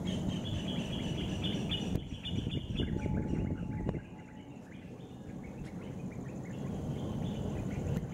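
Birds chirping in quick, repeated short notes, busiest in the first half, over a steady high insect drone and a continuous low rumble.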